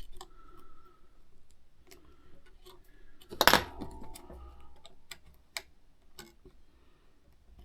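Small scattered clicks and taps of a thin ribbon cable and small parts being worked into a tiny ZIF connector on an iPod's circuit board. About three and a half seconds in there is one louder sharp click that rings briefly.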